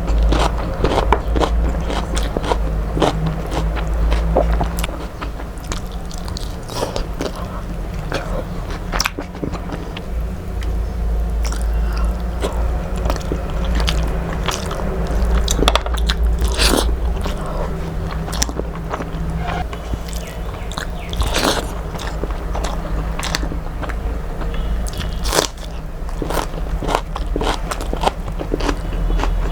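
A person eating close to the microphone: chewing and crunching, with many short clicks and smacks, over a steady low hum.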